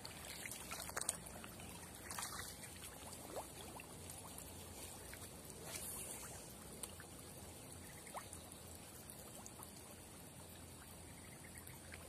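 Faint trickling water with a few light, scattered ticks and rustles.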